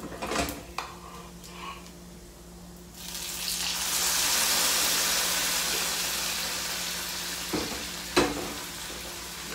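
Cooked black beans poured from a pressure cooker into hot oil and frying garlic in a frying pan, setting off a loud sizzle about three seconds in that slowly dies down. A ladle knocks against the pressure cooker at the start, and a spatula clicks against the pan twice near the end.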